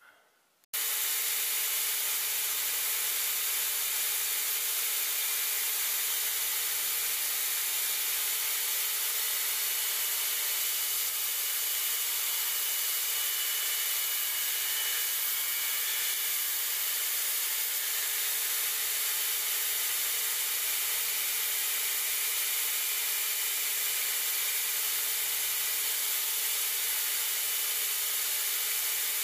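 Belt grinder running with a steady hiss while the end of a handle scale is held against the belt on its work table; the sound cuts in abruptly about a second in.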